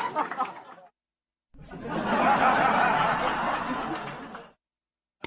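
Women laughing as a stock sound effect: one laughter clip fades out in the first second, then after a short silence a second burst of laughter runs for about three seconds and stops abruptly.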